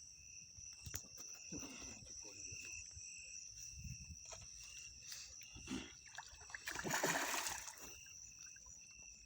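Insects shrilling steadily at two high pitches, with a brief, louder rush of noise like a splash about seven seconds in.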